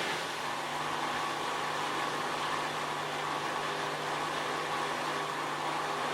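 Esatto EFLW9 front-loading washing machine running mid-cycle: a steady motor hum under an even whooshing noise.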